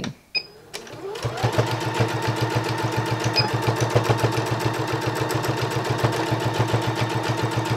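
Electronic domestic sewing machine starting about a second in, its motor speeding up, then stitching steadily at a fast, even rhythm. It is running a finishing topstitch through quilted fabric layers.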